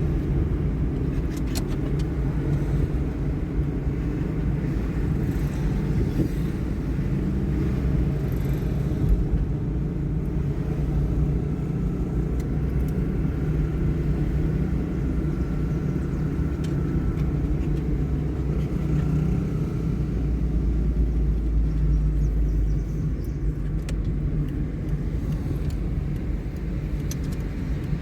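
Steady low rumble of a car in motion: engine and road noise.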